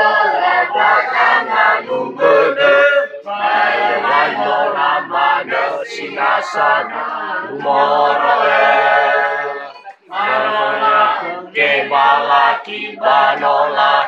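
A group of voices singing a chant together, typical of Nias maena wedding singing, with a short break about ten seconds in.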